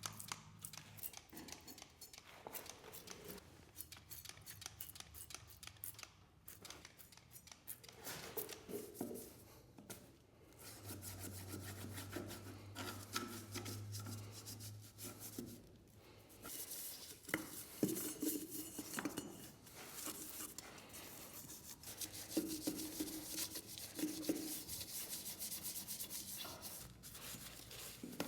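Clay bar rubbed by hand back and forth over the mower's painted fender, irregular scrubbing strokes lifting contamination and transferred paint from the finish.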